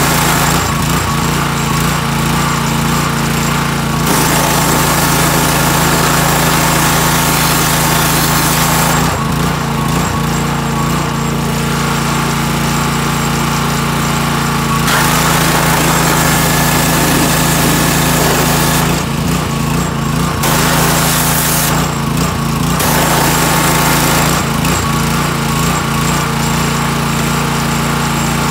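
Gasoline pressure washer engine running steadily, while the high-pressure jet from the wand hisses against the underside of a mower deck in several bursts as the trigger is squeezed and released.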